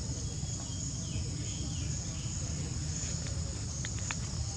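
Steady high-pitched chorus of insects over a low steady rumble, with a few faint short chirps early on and a few small clicks near the end.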